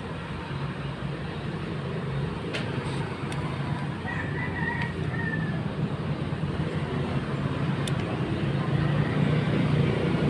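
A rooster crows once, about four seconds in, a short broken high call lasting about a second and a half. Under it runs a steady low mechanical hum that grows louder near the end, with a couple of faint clicks.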